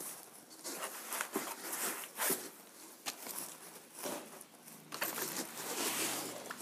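Packaging being handled: scattered rustles, scrapes and light knocks, then a longer scraping rub near the end as a large hard plastic case is pulled up out of its cardboard box.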